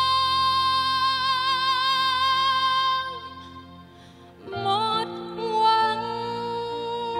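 A woman's solo voice holding a long, high belted note with vibrato over backing music; after a brief lull about three seconds in, she sings on more quietly.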